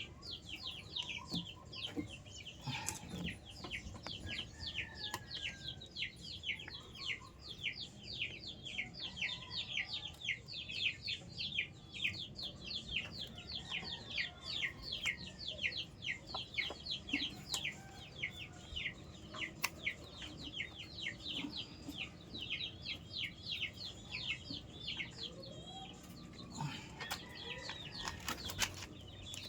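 Birds chirping: a fast, continuous run of short, downward-sliding chirps, several a second.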